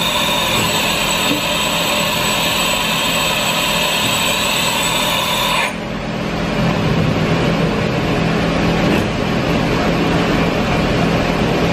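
Doosan DBC130II horizontal boring mill running: a high multi-tone whine cuts off suddenly about six seconds in, then a steadier, lower mechanical hum follows as the spindle head travels away from its right-angle attachment head.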